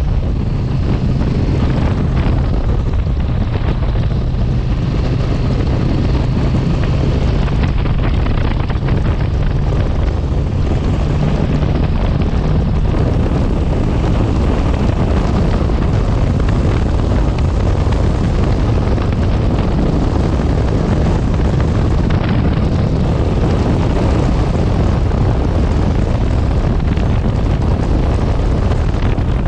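Motorcycle riding at a steady speed: a steady low engine note under loud wind rushing on the microphone. The engine note is plainest in the first half, after which the wind rush covers most of it.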